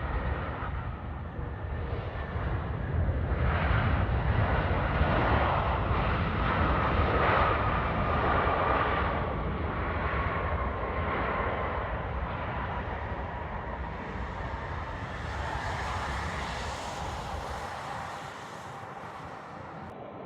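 Jet airliner passing close by. The engine noise swells to a peak and then slowly fades, and a thin engine whine drops slightly in pitch as the aircraft goes past.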